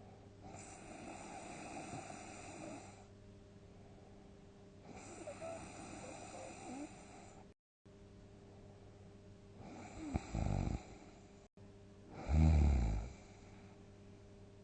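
A sleeping person snoring: two long, quieter breaths in the first half, then two short, much louder, deep snores in the second half.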